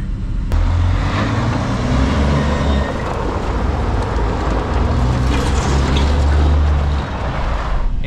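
Heavy delivery truck's diesel engine running steadily as it comes in, a low rumble under road and wind noise, starting abruptly about half a second in.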